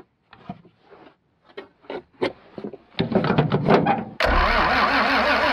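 Wrench clicks and scrapes on the fuel-line fittings, then, about three seconds in, loud mechanical noise. Just past four seconds it gives way to the steady, low rumble of the John Deere 4430's diesel engine cranking over on the starter, trying to start on gelled fuel.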